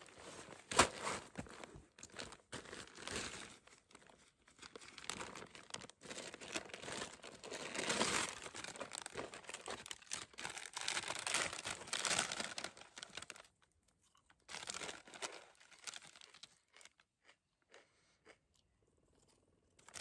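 Plastic bags crinkling and rustling as food is pulled from a clear plastic food bag and a bag of corn chips is torn open, for about the first thirteen seconds. After that come a few faint, scattered crunches, then near quiet.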